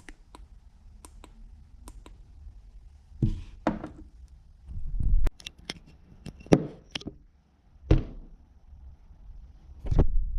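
Handling noise close to the microphone: a few faint sharp clicks, then irregular knocks and thumps with brief rubbing, as objects are moved and set down.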